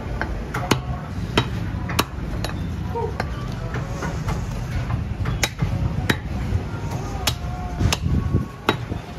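Heavy steel cleaver chopping goat head meat and bone on a wooden log chopping block: a series of sharp, irregular chops, roughly one every half second to second.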